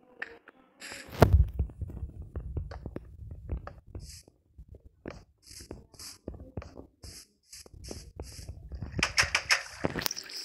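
Hand work on wood: irregular knocks and clicks, with a run of short rasping strokes about twice a second through the middle.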